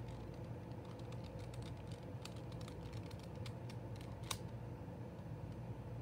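2x2 Rubik's cube being turned by hand: a run of quick, light plastic clicks as its layers snap round, with one sharper click a little past four seconds in.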